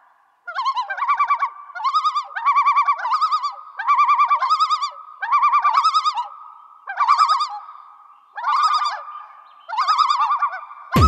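A warbling, whistle-like call repeated in short bursts, often in pairs, about a dozen times over a faint steady hum. A loud electronic beat cuts in at the very end.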